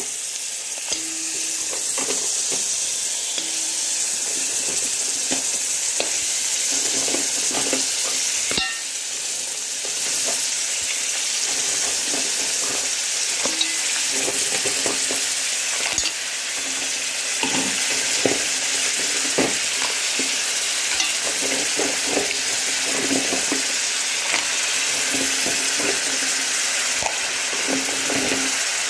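Mussels in their shells sizzling as they fry in hot oil in a pot. Frequent clicks and clatters come from the shells being stirred against each other and the pot.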